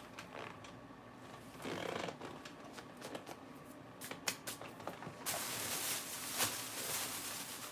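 Lettuce being handled and mixed: soft crinkling rustles and light clicks, turning into a steadier rustle about five seconds in.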